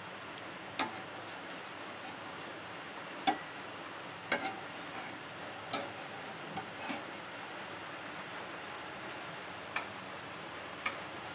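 Metal spatula tapping and scraping against a dosa tawa as a dosa is rolled up and lifted off: about nine short sharp clicks, the loudest about three seconds in, over a steady low hiss.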